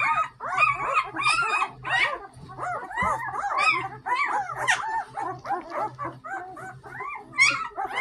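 A litter of one-week-old puppies squealing and whimpering: many short, high squeaks that rise and fall, overlapping one another without a break, as the pups scramble to nurse.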